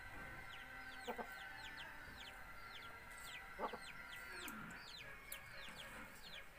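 Birds peeping faintly and continuously in short, high, falling chirps, several a second, with a couple of soft knocks about a second in and near the middle.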